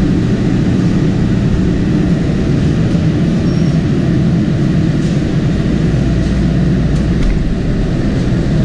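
Ship's engine room machinery running: a loud, steady, deep rumble with no change in level. A few faint clicks sound over it in the second half.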